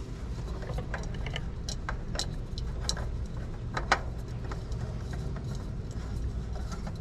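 Scattered light clicks and taps, the sharpest about four seconds in, from a new spin-on oil filter being lined up and threaded onto its mount by hand. A steady low hum runs underneath.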